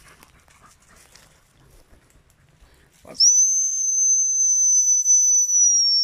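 Dog-training whistle blown in one long, steady, high-pitched blast of about three seconds, starting about three seconds in.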